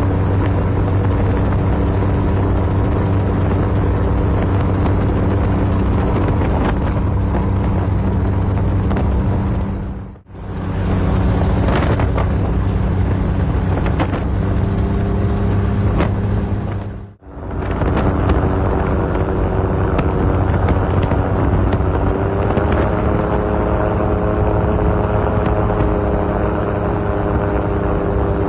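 Helicopter running steadily, a constant drone with a high whine above it. The sound drops out briefly twice, at about ten and seventeen seconds in, and a higher tone comes in after the second break.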